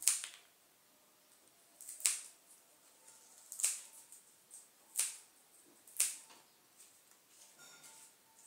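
Scissors snipping: five short, sharp cuts, about one to one and a half seconds apart.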